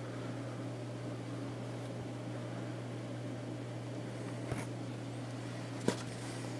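A steady low hum with a faint hiss of room noise, broken by two brief clicks from the cap being handled, about four and a half and six seconds in, the second louder.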